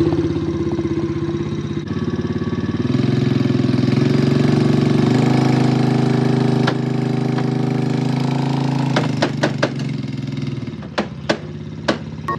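Small 125 cc ATV engine running under a heavy load of about 1,000 pounds, its pitch stepping up twice as it revs, then easing off, with a few sharp clicks near the end.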